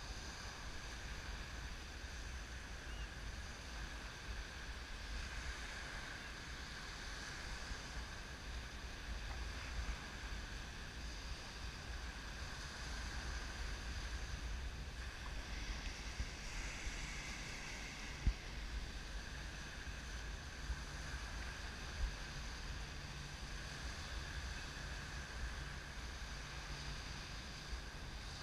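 Small waves breaking and washing up on a sandy beach, with wind rumbling on the camera microphone. Two short knocks come in the second half.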